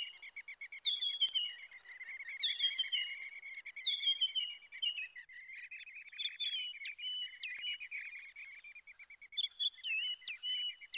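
High chirping calls over a fast, continuous pulsing trill. A falling chirp repeats about every one and a half seconds, then gives way to sharper whistled notes in the second half.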